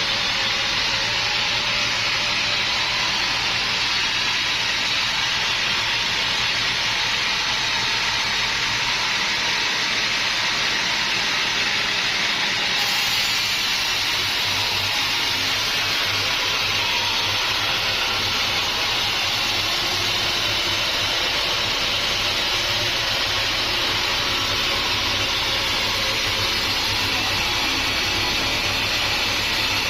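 Machinery running steadily: an even, hissing rush over a low hum, with no separate knocks or strokes.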